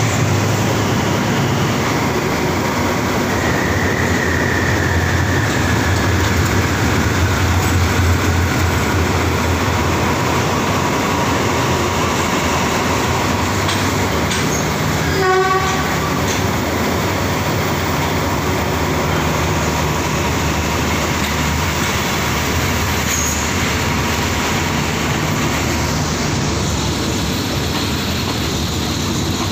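Passenger train pulling slowly out of a station, heard from on board its carriage: a steady low rumble of wheels on rails and the carriage running, with a brief rattle of ticks about halfway through.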